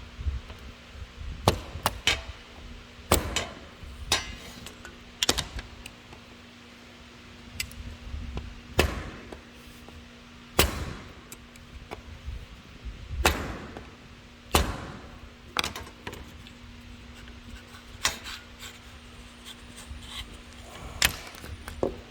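Sharp knocks of hand tools on the frame, about a dozen, irregularly spaced a second or more apart, as a plastic corner piece is driven out with a hammer and flathead screwdriver.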